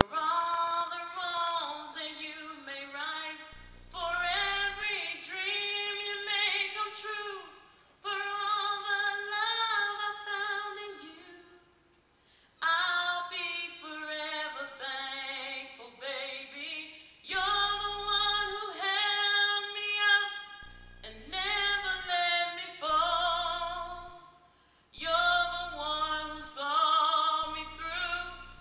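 A woman singing solo, unaccompanied, through a microphone, in long held phrases with vibrato. She breaks off twice for a short pause.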